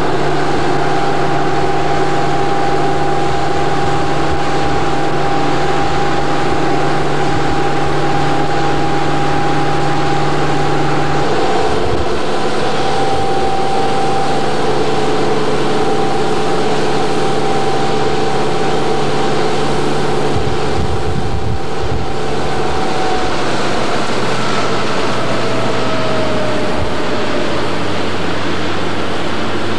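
Motorboat engine running steadily under way, with a rush of wind and water. Its pitch steps a little about a third of the way in and falls slightly later on.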